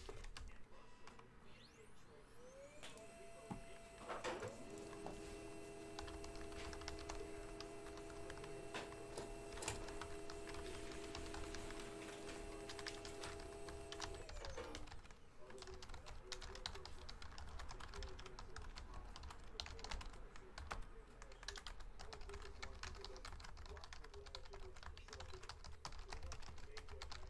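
Typing on a computer keyboard: a run of quick, light key clicks. A faint steady multi-tone hum sounds underneath for about eleven seconds, starting around three seconds in.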